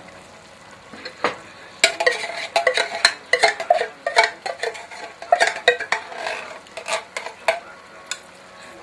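Metal spoon stirring in a cooking pot, knocking and scraping against the pot in a quick run of ringing clanks from about a second in until near the end.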